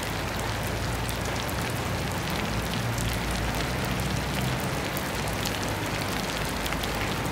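Steady rain, with many separate drops ticking over a low rumble.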